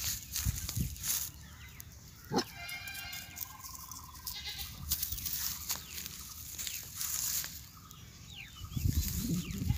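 A drawn-out animal cry, pitched and wavering, from about two and a half to four seconds in, over scattered rustling and knocks.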